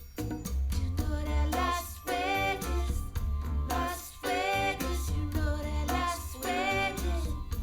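Recorded pop song: a woman singing in short phrases over a strong bass line.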